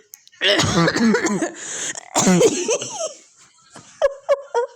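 A woman laughing hard in high-pitched, wheezing, cough-like fits, gasping between outbursts. Near the end it breaks into short rapid laugh pulses, about four a second.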